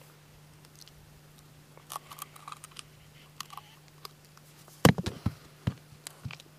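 Small clicks and scrapes of a boy trying to bite into a stone block, then a cluster of sharp knocks about five seconds in and a couple more near the end. A faint steady hum underneath.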